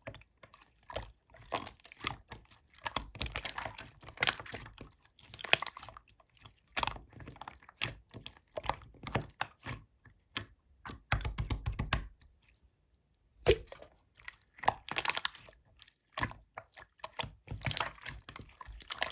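Slime being squeezed and kneaded by hand, making irregular sticky clicks, pops and crackles, with a short pause about two-thirds of the way through.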